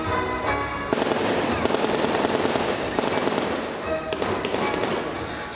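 Stunt dirt bike's engine revving hard, a dense rapid crackle from about a second in until around four seconds, with music underneath.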